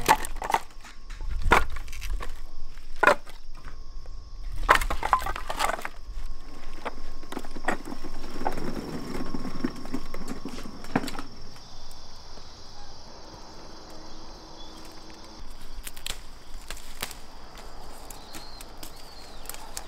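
Sharp knocks of wood, a handful of them spaced a second or more apart in the first six seconds, then quieter rustling and clatter.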